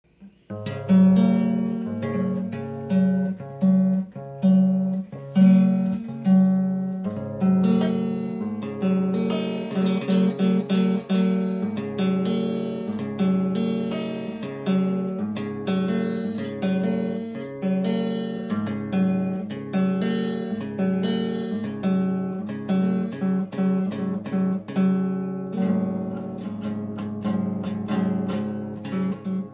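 Acoustic guitar being played solo: a run of plucked and strummed notes and chords, each ringing out and fading, with no singing.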